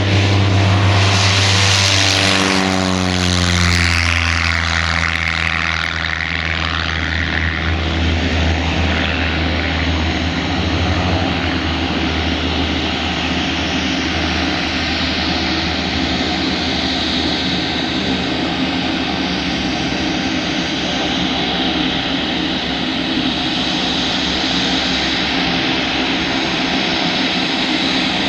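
A Van's RV kit plane's piston engine and propeller on its takeoff run. The pitch drops as it passes about two to three seconds in, then a steady drone continues as the plane climbs away.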